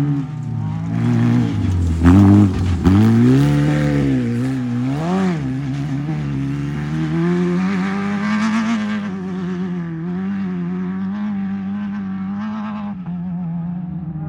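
Off-road race vehicle's engine revving hard, its pitch rising and falling repeatedly, loudest about two to three seconds in, then settling into a steadier, even note for the rest.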